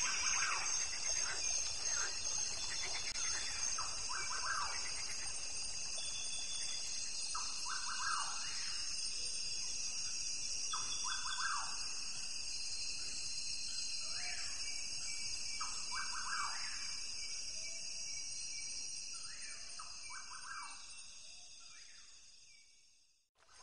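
Rainforest ambience: a steady high insect drone with short bird chirps and calls repeating through it, fading out over the last few seconds.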